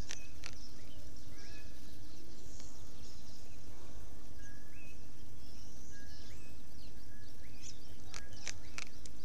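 Birds chirping around a pond: short rising calls repeated every second or so over a steady outdoor background hiss, with a few sharp clicks near the end.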